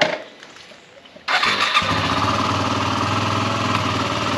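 Yamaha WR250R's single-cylinder four-stroke engine starting about a second in and settling straight into a steady idle, after a short knock at the very start.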